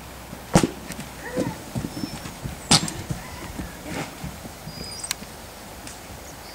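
Horse moving about on sandy ground: two loud, sharp knocks about two seconds apart, with softer hoof thuds scattered between them.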